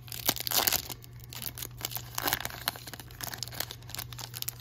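Foil trading-card pack wrapper being torn open and crinkled by hand: irregular crackling and tearing, busiest in the first second and again around two seconds in.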